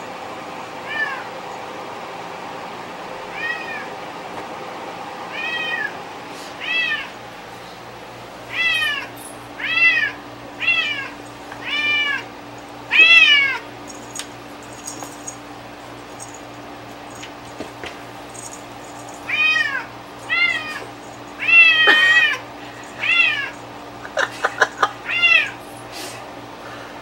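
Domestic cat meowing over and over, each meow about half a second long and rising then falling in pitch, with a pause of several seconds in the middle and a quick run of short calls near the end.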